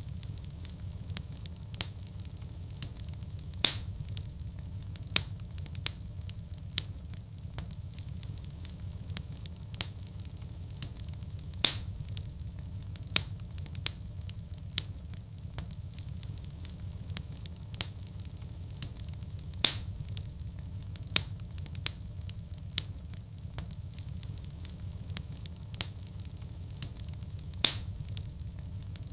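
Wood fire in a fireplace burning with a steady low rumble and sharp crackles and pops. The same pattern of pops comes back every eight seconds, showing a looped recording.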